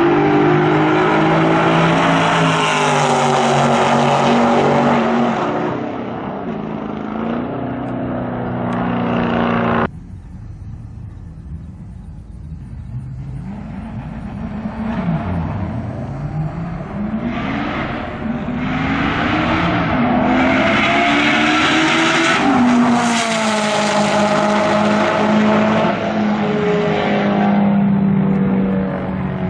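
Street cars' engines at full throttle down a drag strip, their pitch repeatedly rising and dropping. The sound breaks off suddenly about ten seconds in, then another pass of engines climbs in pitch and falls away.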